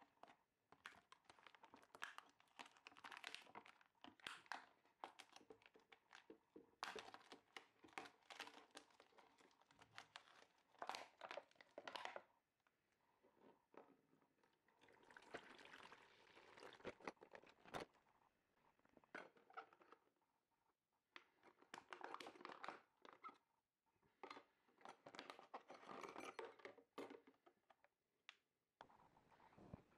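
Crumpled plastic bottle crinkling and crackling in bursts as it is handled and squeezed, with liquid pouring from it into a plastic tub.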